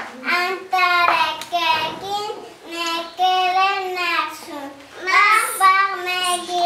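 A young child singing a song alone, holding long notes with short breaks between phrases.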